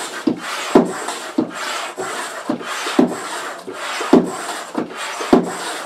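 Stand-up hand pump being worked steadily, about ten strokes, each a rasping rush of air ending in a knock as the handle bottoms out, inflating the floor chamber of an inflatable kayak.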